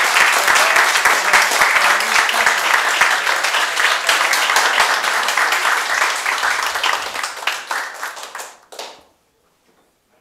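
Audience applauding the end of a song: many hands clapping, loud at first, then dying away and stopping about nine seconds in, followed by near silence.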